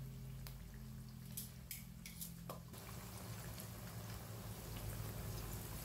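Fish steaks frying in hot oil in a wok over medium heat: a faint sizzle with a few scattered crackles, turning into a fuller, even hiss about halfway through, over a low steady hum.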